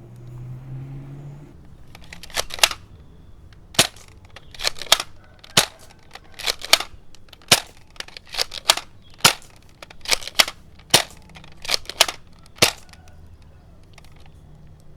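Toy Nerf Elite Commander blaster snapping repeatedly: about twenty sharp clicks in uneven runs of one to three, from about two seconds in until near the end.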